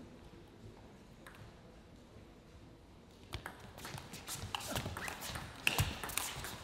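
Table tennis rally: the celluloid ball clicking quickly back and forth off the bats and the table, starting about halfway through after a quiet pause.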